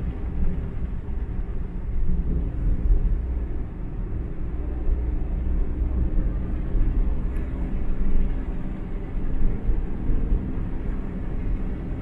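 A car driving along a road at steady speed: engine and tyre noise in a steady low rumble.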